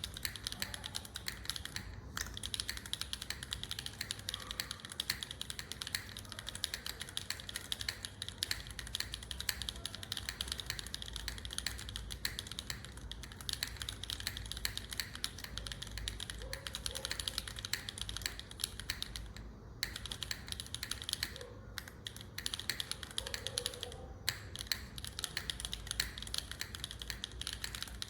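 Continuous fast typing on a QK60 gasket-mounted 60% mechanical keyboard with a carbon-fibre plate, no foam, linear switches (Cherry vintage black housings topped with Gateron Pure Sky), Neo stabilisers and GMK ABS keycaps. It is a dense stream of keystroke clacks with a few short breaks.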